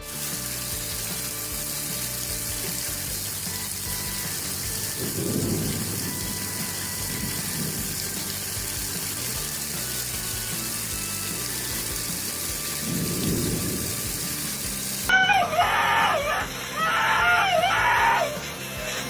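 Heavy rain falling steadily, with two low, dull rumbles partway through. About fifteen seconds in, a husky breaks into loud, wavering howls that rise and fall, several cries in a row.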